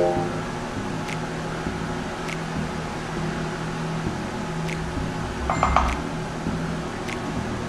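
Steady low machine hum in the room, with a few faint clicks.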